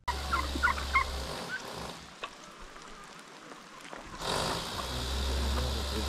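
Chickens clucking in short, quick calls during the first second or so. From about four seconds in, a steady low rumble of outdoor background noise takes over.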